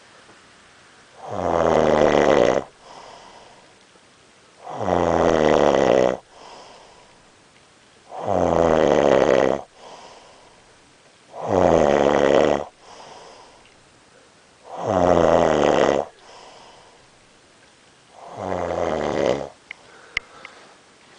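A sleeping man snoring loudly: six long snores, one about every three and a half seconds, with softer breaths between them.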